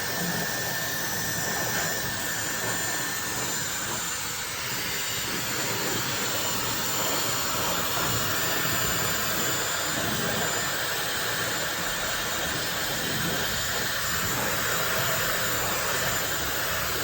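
Dyson Supersonic hair dryer running steadily on its strongest airflow setting: an even rush of blown air with a faint high whine.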